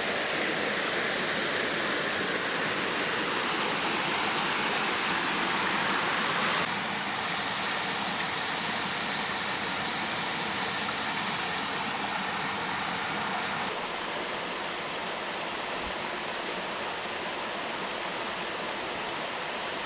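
A mountain creek and its small waterfalls rushing steadily, a level wash of water noise that steps a little quieter twice.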